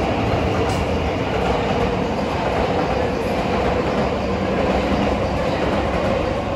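JR Yamanote Line electric commuter train passing along the tracks, a steady rumble of wheels on rail with a steady hum over it.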